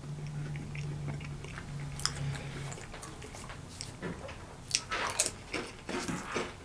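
Dry saltine crackers being bitten and chewed, with sharp crunches about two seconds in and again around five seconds. A low steady hum sounds over the first two or three seconds.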